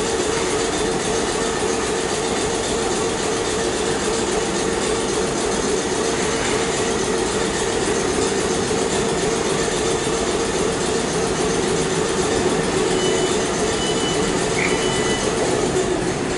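Class 455 electric multiple unit standing at the platform, humming steadily with a constant drone.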